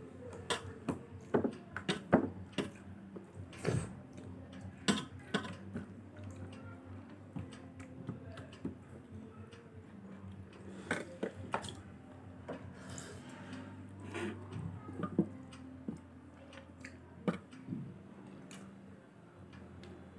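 A meal of rice and dal being mixed and eaten by hand from a plate: soft squishing and many small irregular clicks, over a faint steady hum.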